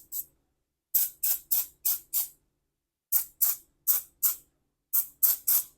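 Aerosol chain lube sprayed in short squirts, in quick runs of four or five about a third of a second apart with brief pauses between runs. The lube is going onto the garage door's hinges and rollers, to stop metal-on-metal squeaking.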